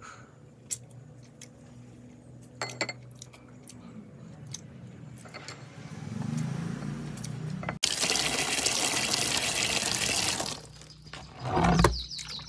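Soft scattered clicks over a low hum, then, after about eight seconds, water rushing into a plastic basin for a few seconds, followed by a low thump near the end.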